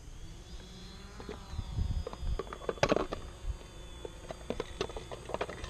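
Quadcopter drone's electric motors and propellers whining: several steady tones rise in pitch over the first couple of seconds as it spins up, then hold. A low rumble sits underneath, and a sharp knock comes about three seconds in.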